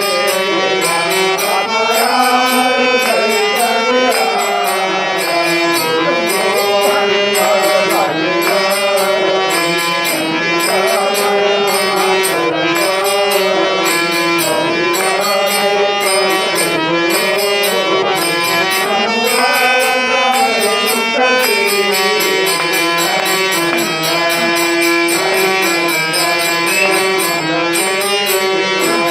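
Hand-pumped harmonium playing a bhajan melody, its reeds sounding continuously over a steady held note.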